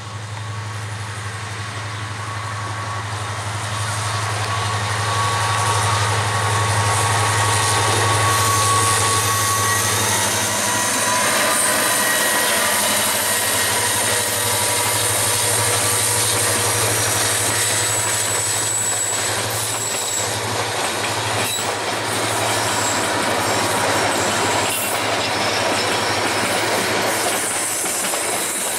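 A diesel locomotive hauling an express passenger train approaches, its low engine hum growing louder over the first several seconds, then passes. The coaches follow with a steady clatter of wheels over rail joints, and the wheels squeal on the curve.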